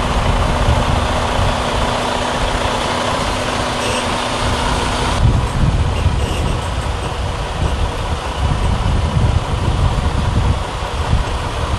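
Heavy American semi-trucks' diesel engines running as they drive past in a convoy, a loud steady rumble. A steady hum in it cuts off abruptly about five seconds in, where the whole sound changes.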